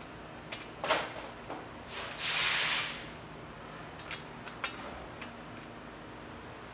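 Hand work on a motorcycle spark plug and its socket at the cylinder head: a knock, a brief hiss, then a few light metal clicks as the plug is threaded back in.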